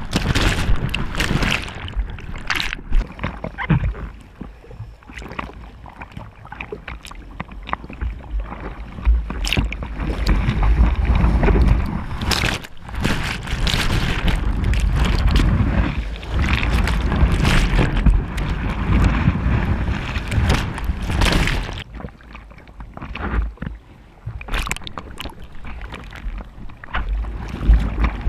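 Surf water splashing and sloshing over a bodyboarder's water-level action camera, with breaking waves and a heavy low rumble. The sound comes in uneven surges and turns dull and muffled for stretches when the camera goes under the water.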